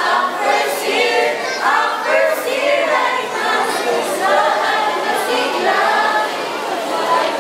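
A group of young voices singing a song together in chorus, with little or no instrumental backing heard.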